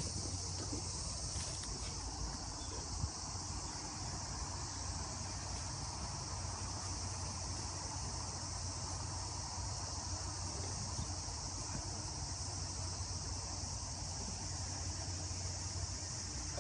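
Steady, high-pitched chorus of insects trilling without a break, with a steady low machine hum underneath.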